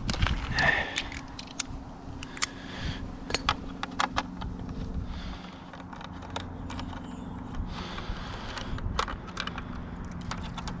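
Small metal tools and parts clinking and rattling as they are handled, a scattered series of sharp clicks over a faint low steady hum.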